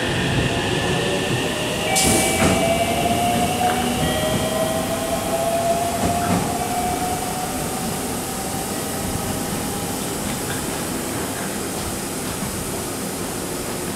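JR 313 series electric train accelerating away from a platform: its motor whine rises slowly in pitch over wheel and track rumble, then fades as it recedes. A short hiss comes about two seconds in.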